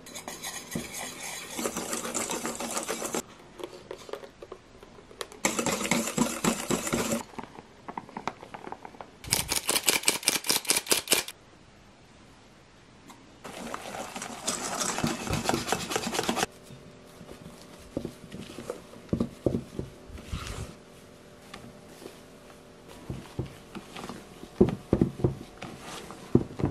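Wire whisk beating cake batter in a stainless steel bowl: four bouts of quick, rhythmic strokes of a couple of seconds each, with short pauses between. After that, softer scraping and a few light knocks as the batter is mixed more gently.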